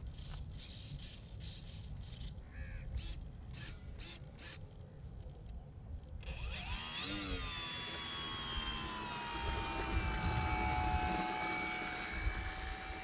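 Low rumble with a few clicks, then about six seconds in a model airplane's small electric propeller motor spins up to a high whine. The pitch rises briefly, then settles and holds steady as it gets louder.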